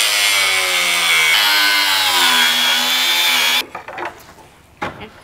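Angle grinder with a flap disc grinding into the steel of a car's strut tower beside the strut top mount: a loud, steady whine over a grinding hiss, its pitch sagging slightly under load, that cuts off suddenly a little over three and a half seconds in. A few faint knocks follow.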